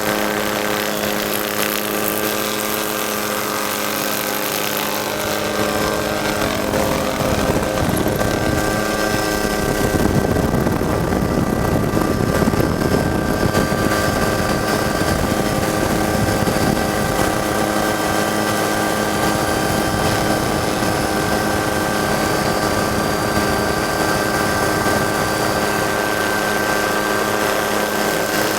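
Ford EcoBoost spec trophy truck engine running steadily. For several seconds about a quarter of the way in it swells louder, with some rising and falling pitch, then settles back to a steady tone.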